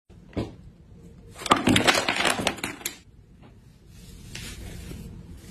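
Hard plastic and metal makeup containers clattering together in the hands: a single click, then a dense rattle of knocks for about a second and a half. A softer cloth rustle follows near the end.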